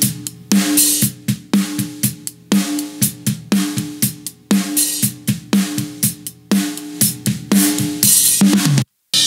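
Snare drum recording from the top microphone, with kick drum and hi-hat spill, playing back as a steady groove with a strong snare hit about once a second and a ringing drum tone. The recording runs through a parallel FET compressor set to a long attack and a very short release for punch and pump, while its input (threshold) is being turned. It cuts out briefly near the end, then the groove starts again.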